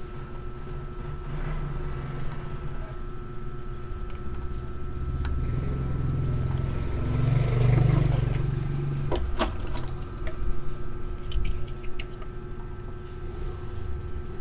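A low rumble swells over several seconds and fades again, loudest about halfway, followed by a few sharp clicks, over a steady faint hum.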